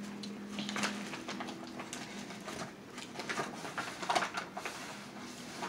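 Quiet eating sounds of children at a meal: forks tapping and scraping on paper plates, and chewing, as scattered small clicks. A low steady hum runs through the first two seconds.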